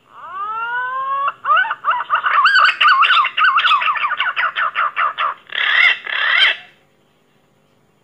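Pink-necked green pigeon (punai gading) song played as a lure call. It opens with a long rising whistle, runs into a quick series of wavering whistled notes at about five a second, and ends with two louder upslurred notes.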